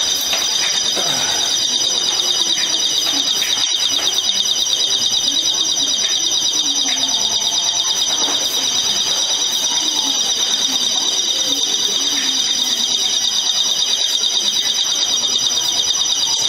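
A building alarm ringing without a break in a high, trembling tone, sounding in a shop during an earthquake. Faint voices of people can be heard beneath it.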